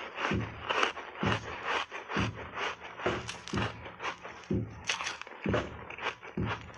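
Close-miked chewing of a crunchy frozen foam-ice block coated in milk powder: a steady run of crisp crunches, about two a second.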